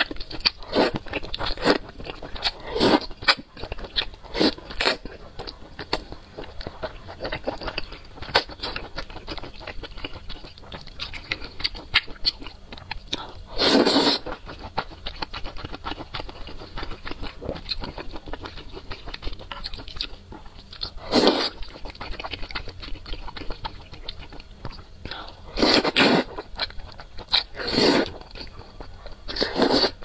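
Close-miked eating of wide flat noodles in chili oil: steady wet chewing and mouth clicks, broken by several loud slurps as mouthfuls of noodles are drawn in, the longest about 14 s in.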